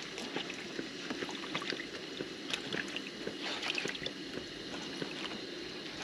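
Freshwater prawns (cherabin) being swished by hand in a plastic tub of water to wash them, with irregular small splashes and clicks.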